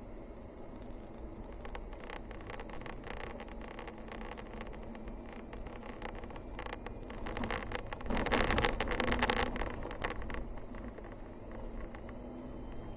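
A vehicle driving along a narrow paved mountain forest road. Steady engine and tyre noise runs throughout, with scattered light rattles and clicks. The sound grows louder and denser for about two seconds around two-thirds of the way in.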